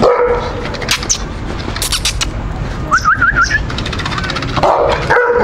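Outdoor ambience with a steady low rumble, a few sharp clicks or rattles in the first half, and a quick run of rising chirps about three seconds in.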